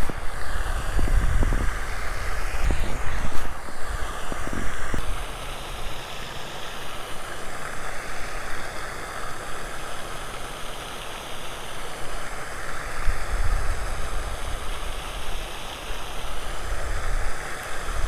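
Wind buffeting the microphone in gusts over a steady outdoor hiss, with a few faint handling knocks in the first few seconds.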